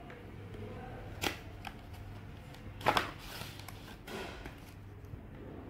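Cardboard and paper packaging being handled: soft rustling with a few sharp clicks as a small cardboard accessory box is opened and a paper-wrapped USB-C cable is pulled out. One click comes about a second in and a louder pair about three seconds in, over a low steady hum.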